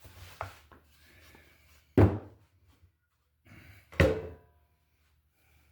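Two loud, sharp thunks about two seconds apart, with lighter knocks and handling noise before them: heavy objects being moved and set down in a woodworking shop.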